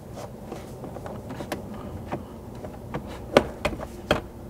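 Plastic door trim panel of a Ford Bronco rear door being handled and shifted against the door, with scattered light clicks and knocks of plastic; the sharpest knock comes a little over three seconds in.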